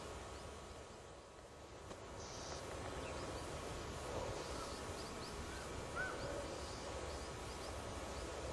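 Quiet outdoor ambience with distant birds calling: a scatter of short, thin high chirps and a couple of brief notes through the middle, over a steady low rumble.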